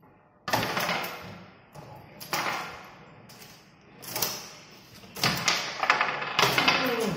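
Foosball game in play: sudden knocks and clatter of the ball and plastic players striking and the steel rods rattling. There are single bursts about every two seconds at first, then a dense run of clattering in the last two seconds.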